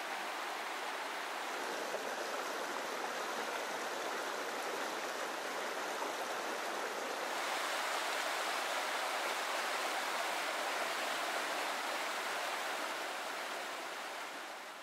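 Small mountain stream rushing over rocks in white-water rapids: a steady rush of water that grows a little louder about halfway and fades near the end.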